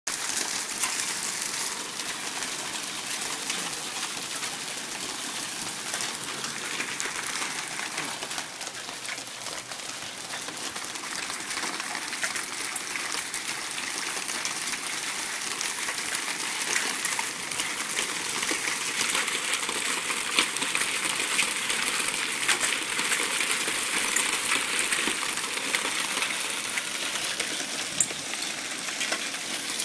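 Hail and heavy rain falling on a wooden deck and yard: a dense hiss full of sharp ticks from hailstones striking, growing louder in the second half.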